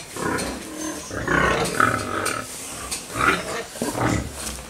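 Pigs in the pens calling, several rough calls one after another.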